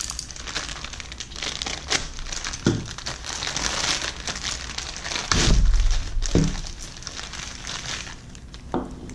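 Thin clear plastic packaging bag crinkling as it is opened and pulled apart and a coiled USB cord is drawn out of it. Several dull thuds from handling sound along with it, the loudest about two-thirds of the way in.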